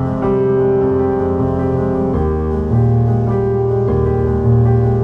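Background music: a gentle piano piece of held chords that change every second or so.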